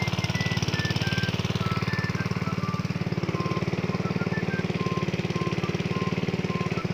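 Small petrol engine of a 2-inch Alkon water pump running steadily at raised throttle, a fast even pulsing; the pump is primed and drawing water up the suction hose. Light background music plays over it.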